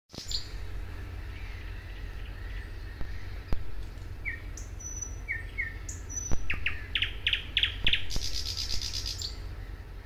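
Thrush nightingale singing: scattered short notes and high whistles, then a run of loud repeated notes. A fast, dry rattle follows near the end.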